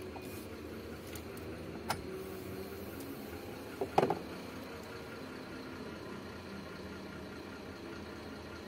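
Steady low hum of a vehicle engine idling. Two sharp clicks or knocks come about two and four seconds in, as the wiring harness by the fuse box is handled.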